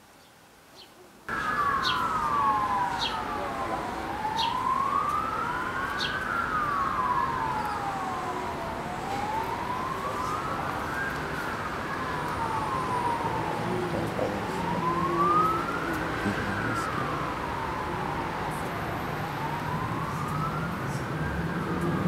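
An emergency-vehicle siren wailing, its pitch sweeping slowly up and down about once every four and a half seconds. It cuts in suddenly about a second in, over a low rumble.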